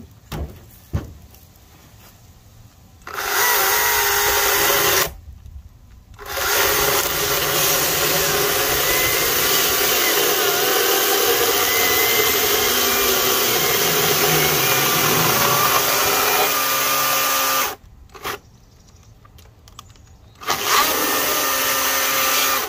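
Greenworks Commercial GS110 battery-powered top-handle chainsaw running in three bursts: a two-second run, a long run of about eleven seconds, and a short run near the end, each starting and stopping abruptly.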